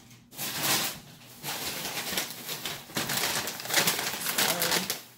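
Grocery bags rustling and crinkling in several bursts as items are dug out of them.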